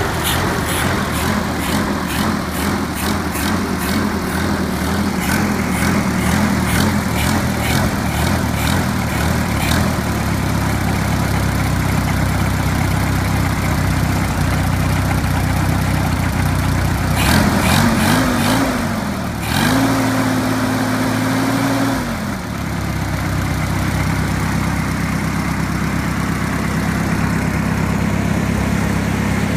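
Early-1940s Hercules ZXB four-cylinder flathead engine running at idle; a little past the middle its speed rises and holds for a few seconds, then drops back to idle. It runs on a faulty carburetor, which the owner says keeps it from running right.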